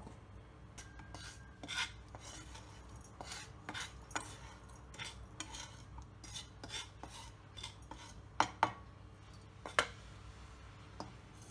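Wooden spoon scraping dry roasted spice mix out of a nonstick pan into a stainless-steel mixer-grinder jar: scattered light scrapes and taps, with a few sharper knocks of spoon or pan on the jar late on.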